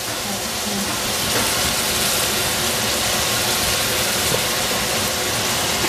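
Eggplant frying in a hot pan: a steady sizzle.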